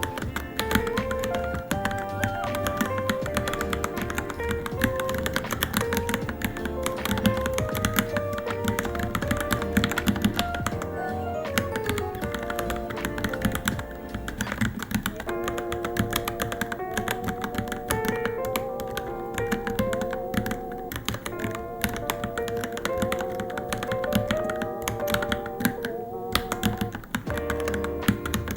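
Continuous fast typing on a Varmilo Minilo mechanical keyboard, a dense stream of key clicks and thocks, over background music with a melody.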